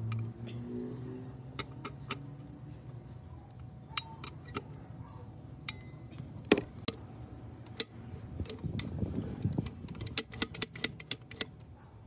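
Metal parts and tools being handled, giving scattered sharp clicks and clinks. The loudest knock comes about halfway through, and a quick run of light ringing taps follows near the end, over a low steady hum.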